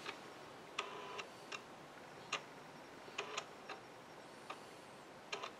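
Fujikura FSM-60S arc fusion splicer's alignment motors at work with the lid closed: a dozen or so faint, irregularly spaced ticks and brief buzzes as the machine sets the gap and aligns the two fibers ahead of the arc.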